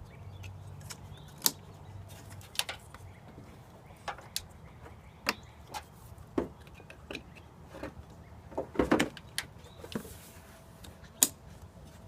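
Irregular sharp clicks and knocks of car parts being handled while a headlight assembly is being disconnected and removed, with a quick cluster of knocks about nine seconds in.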